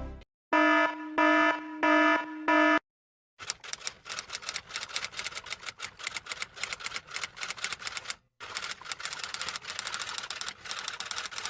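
Four short electronic beeps, then after a brief pause a long run of rapid typing clatter, clicks tumbling several to the second with one short break.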